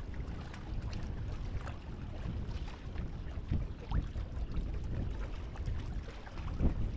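Small waves lapping and splashing against a kayak hull as it moves slowly over choppy water, with wind rumbling on the microphone.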